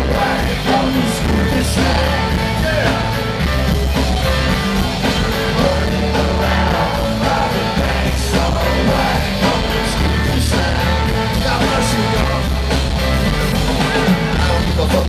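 Live rock band playing loudly through a festival PA, heard from the crowd: electric guitar, bass and drums, with a voice singing over them and a bass line moving in held notes.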